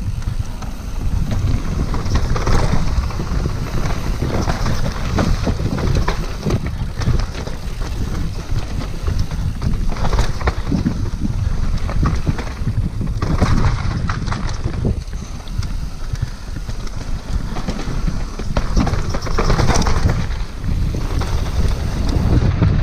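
Wind buffeting the microphone of a camera on a downhill mountain bike, a heavy low rumble, with frequent knocks and clatter from the bike over rough trail.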